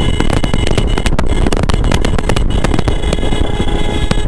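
Yamaha FZ motorcycle being ridden on a rough road: the engine runs under heavy wind noise on the microphone, with frequent short knocks and rattles from the bike going over the uneven surface.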